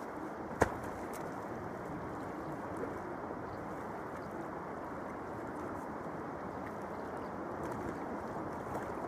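Steady rushing noise of wind and flowing river water, with one sharp click just over half a second in.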